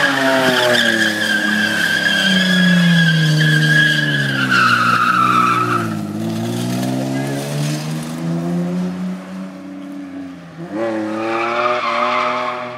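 Pickup truck engine revving hard while the rear tyres squeal in a sideways slide for about six seconds. The revs then fall and rise unevenly, and near the end the engine revs up again with a second short tyre squeal.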